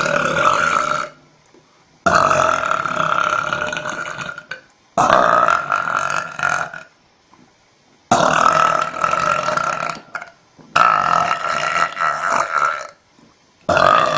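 A young woman belching over and over: a run of about six long, loud burps, each lasting one to three seconds, with short pauses between them.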